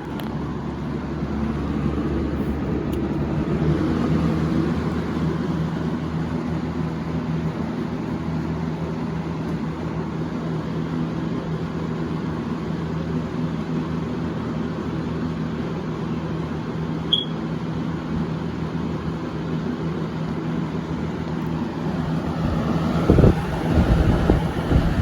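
Lakewood P223 20-inch box fan running: a steady motor hum with the rush of air through the blades. Louder low rumbling buffets come in near the end.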